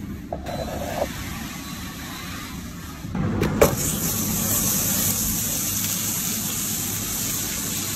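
Butter sizzling in a hot steel pan: a steady hiss that starts suddenly about three seconds in, with a sharp click as it begins. Before it, a low steady rumble.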